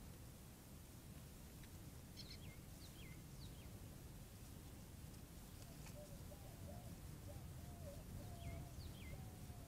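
Faint birdsong: short sharp calls that drop in pitch, a cluster of them a couple of seconds in and two more near the end, over a steady low rumble. From about halfway through, a faint low wavering call joins in.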